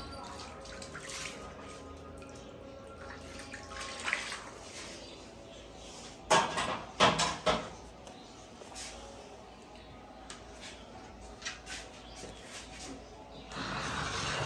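Water dripping and splashing, with scattered clicks. About six seconds in comes a quick run of four or five loud knocks.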